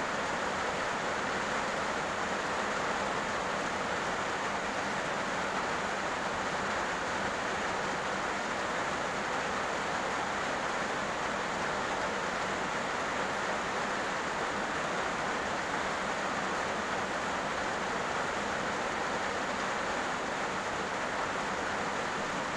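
Heavy rain falling steadily on a road: an even, unbroken hiss.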